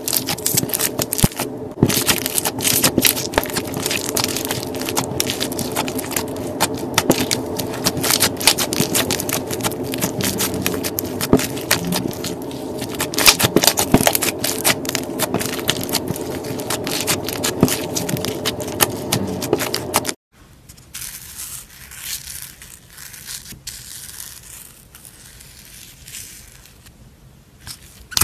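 Slime being squeezed and worked by hand, giving a dense run of rapid clicks and pops. About two-thirds of the way through the sound cuts off abruptly, and a much quieter, softer slime sound follows.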